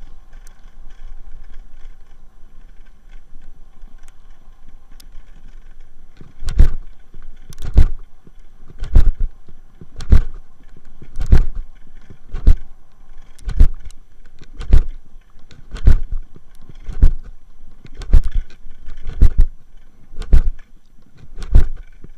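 Wheeled dryland rig running fast along a dirt track behind two sled dogs, a steady rolling rumble. From about six seconds in, a heavy thump comes very regularly, about once a second, and is the loudest sound.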